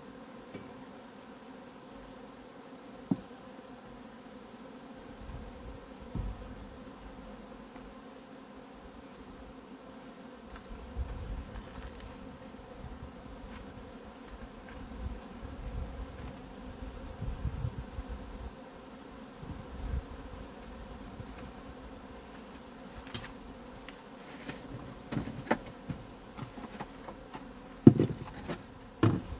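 Honeybee colony buzzing steadily from an open hive as a frame is lifted out and inspected. A few sharp knocks of the wooden hive frames come near the end as the frame is set back.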